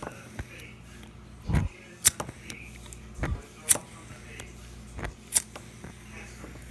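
Pocket lighter being flicked repeatedly, with a sharp click about every one and a half to two seconds. Each click comes just after a dull thump.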